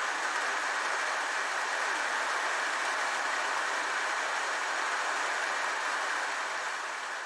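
Steady rushing hiss with no distinct events in it, beginning to fade near the end.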